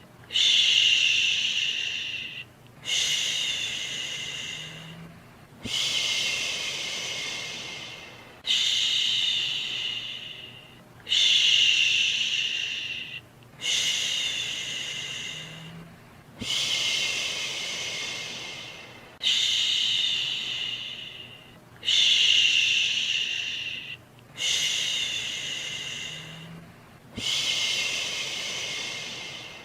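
A human 'shhh' shushing sound for soothing a baby to sleep, repeated about eleven times in an even rhythm. Each shush starts sharply and fades over about two and a half seconds, with a brief break before the next.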